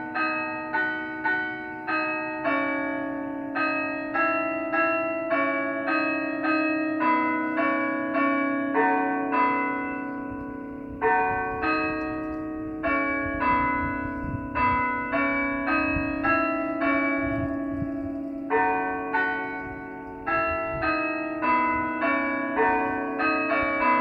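Church bell chimes played through horn loudspeakers on a mast: a tune of struck bell notes of different pitches, about two a second, each left to ring on, with a few short breaks between phrases.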